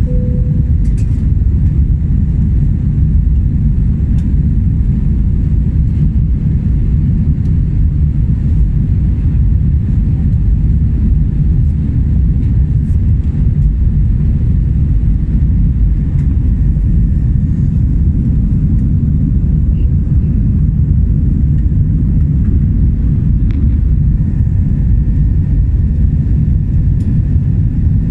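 Steady, loud low rumble of jet engines and airflow inside the cabin of an Airbus A320-family airliner in flight.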